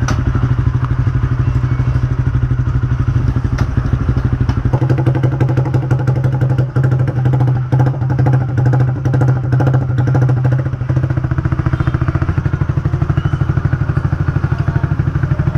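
Motorcycle engine idling steadily with a fast even pulse; its note changes about five seconds in. A few sharp knocks sound over it.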